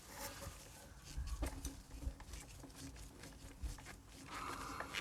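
Faint, scattered clicks and knocks of hand tools and metal brake parts being handled while a motorcycle's rear brake caliper is refitted, with a short scratchy rasp near the end.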